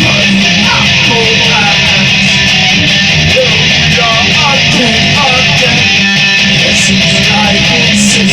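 Guitar playing an instrumental passage of single notes with bends and slides, over sustained low notes, heard through a phone's microphone.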